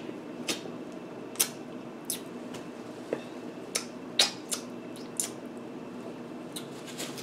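Close-up eating sounds: chewing and wet lip smacks, with sucking as fingers are licked. The short sharp smacks come irregularly, about one or two a second, and the loudest falls about four seconds in.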